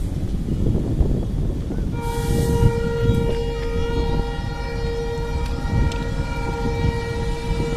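Diesel locomotive running close by with a heavy, steady engine rumble. About two seconds in, a brief hiss is followed by a set of steady whining tones that hold to the end.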